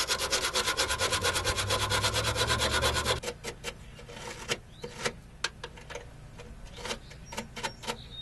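Sandpaper scraping corrosion off a car battery's negative terminal clamp in rapid back-and-forth strokes, about ten a second. The strokes stop about three seconds in and are followed by a few scattered scrapes and knocks.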